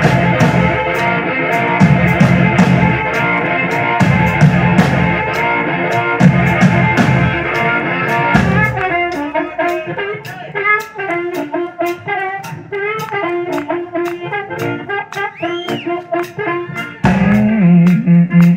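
Blues band playing live with a blues harmonica. The full band plays together, then about eight seconds in it drops back to a sparse drum beat under a harmonica solo of wavering, bent notes, and the full band with bass comes back in near the end.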